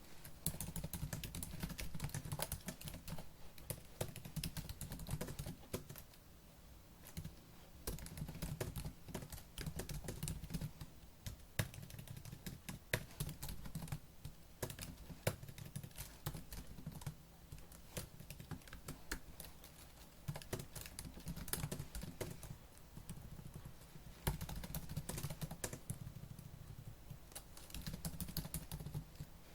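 Fast typing on a laptop keyboard: a dense, irregular run of key clicks, with a brief pause about six seconds in and another shortly before the end.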